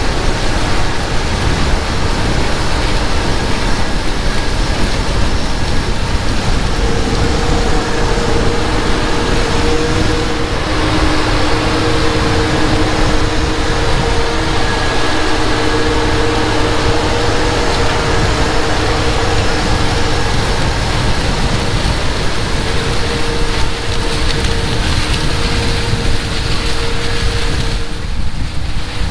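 Versatile 365 tractor pulling a Salford disk ripper through corn stalks: the engine working under load with a steady low rumble, mixed with the dense rustle and rattle of the ripper's discs and shanks cutting through the residue and soil. A steady whine comes in about seven seconds in as the tractor passes close.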